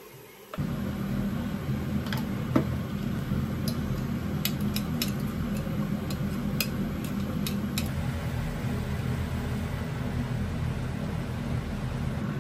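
A steady low mechanical hum switches on suddenly about half a second in and keeps going. Over it, a spatula stirring a glass measuring cup of seasoning makes a run of sharp clinks in the first half.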